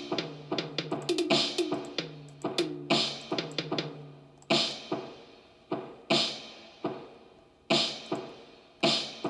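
Drum music: quick rhythmic hits over a low held bass tone, thinning about halfway through to single hits roughly every one and a half seconds that ring out and fade.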